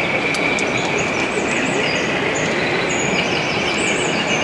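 Steady din of a busy exhibition hall, with short high-pitched chirps over the top from about a second in.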